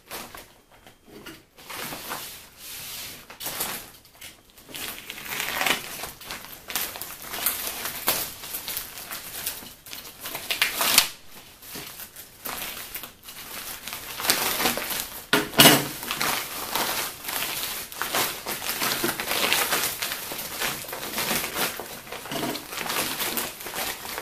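Crinkling and rustling packaging, handled and unwrapped in irregular bursts, with a few sharper crackles.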